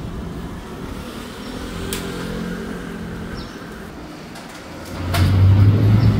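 A motor vehicle passing with a steady engine note, then a much louder low rumble building up about five seconds in.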